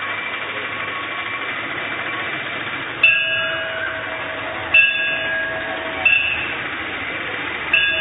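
Temple bell struck by a goat: four clangs about a second and a half apart, beginning about three seconds in, each ringing on with several tones and fading. Before the first clang there is only a steady background hiss.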